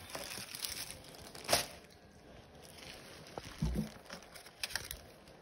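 Packaging crinkling and rustling in a few short bursts as items are lifted out of a box, with a soft thump about two thirds of the way through.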